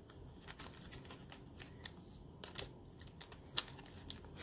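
Faint crinkling and scattered soft clicks of a sheet of adhesive pearl jewels in its card-and-plastic packaging being handled and flexed in the hands, with a sharper click about three and a half seconds in.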